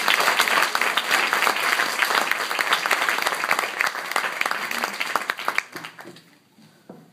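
Audience applauding: dense clapping that thins out and dies away about six seconds in.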